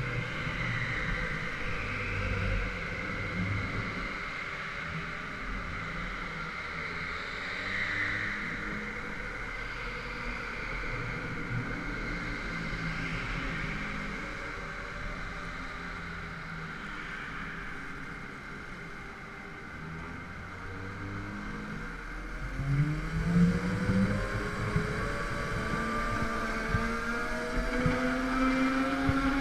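Go-kart motor heard from on board, running through turns with its pitch shifting, easing off briefly, then accelerating hard about three-quarters of the way through with a steadily rising tone.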